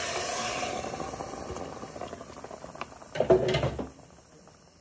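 Chicken stock poured from a measuring jug into a hot pan of frying rice and vegetables, the liquid splashing and hissing and dying away over about three seconds. A brief louder clatter comes about three seconds in.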